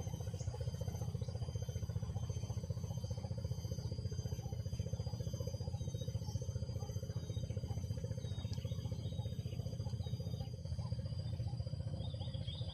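Steady low drone of a small motor running, unchanging in pitch, with faint steady high-pitched tones above it.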